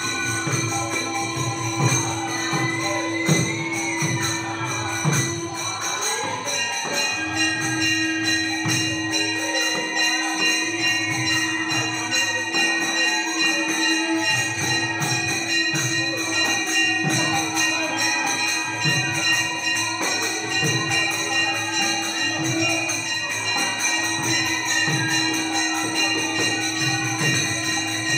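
Bengali kirtan devotional music: voices singing over regular drum strokes from a khol, with ringing hand cymbals and a long steady held note underneath.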